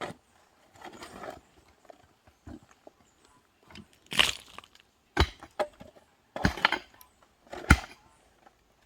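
Hand tools striking the ground in manual road-cutting work: a series of heavy blows about a second apart in the second half, with fainter scrapes and scuffs between.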